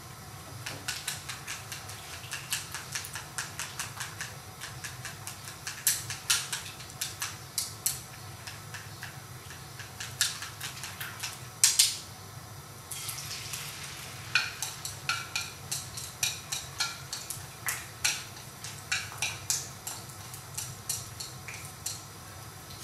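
Wooden chopsticks beating eggs in a ceramic bowl: a quick, uneven run of clicks as the sticks strike the side of the bowl.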